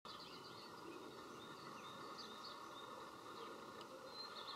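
Faint outdoor ambience: birds chirping over a steady background hiss.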